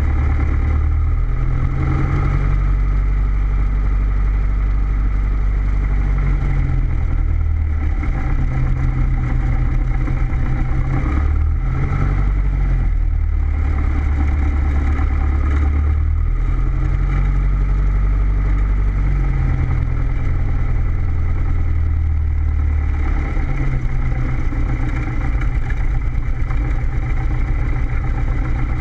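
Cessna's piston engine idling while the plane taxis, its propeller turning slowly. The steady engine drone shifts slightly in pitch a few times.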